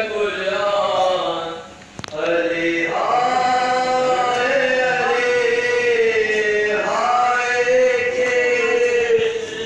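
Male voice chanting a noha, an unaccompanied Shia lament for the martyrdom of Imam Ali, in long held, mournful lines. The singing breaks off briefly about two seconds in, with a single click, and then resumes.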